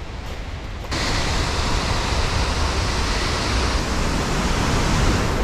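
Loud, steady rushing of a waterfall, cutting in suddenly about a second in after a quieter stretch.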